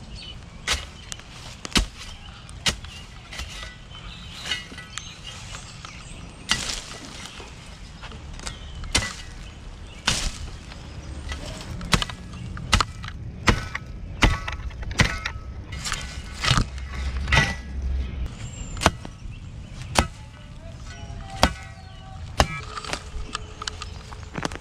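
A shovel striking into dirt and rock while digging out a bank. It is a run of sharp single chops, about one a second and a little quicker in the middle.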